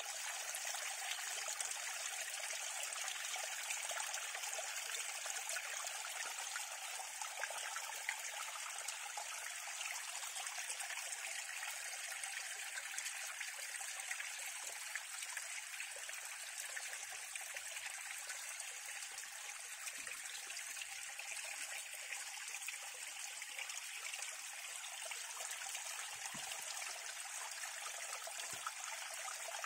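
Water cascading over stones in a small mountain stream: a steady rush of water, mostly high in pitch, with little deep rumble.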